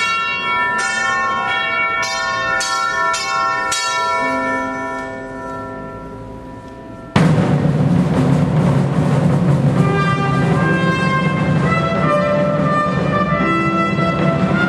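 Bells struck in a steady run of about two strikes a second, each ringing on, for about seven seconds. Then an abrupt cut to louder instrumental ensemble music for the wedding procession.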